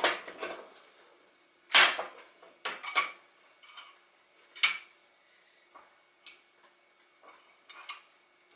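Steel tools and engine parts clinking and knocking together as they are handled: a few sharp metallic clinks in the first five seconds, then fainter taps.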